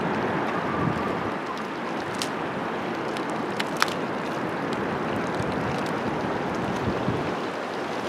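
Steady wind and water washing along an estuary shore, with a few light clicks about two and four seconds in.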